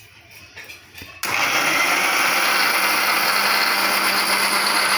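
Electric mixer-grinder switched on about a second in, running steadily with a loud whir as it purées boiled spinach in its cooking water. A few light clicks of the jar lid being fitted come before it starts.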